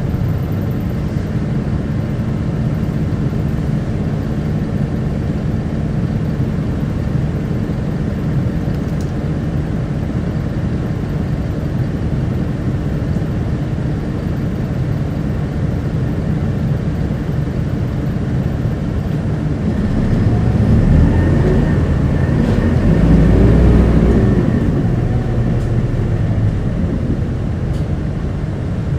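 Keio Bus QKG-KV290N1 diesel city bus heard from inside while driving: a steady engine and road drone. About two-thirds of the way in, the engine note rises and then falls again as the bus accelerates and eases off.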